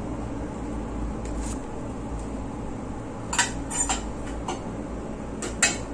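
Kitchen clatter: a few short clinks and knocks of jars, bottles and utensils being handled on a counter, the sharpest near the end, over a steady low background hum.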